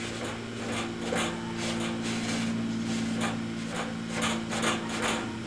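Repeated rubbing and scraping strokes, irregular and a few a second, over a steady low hum.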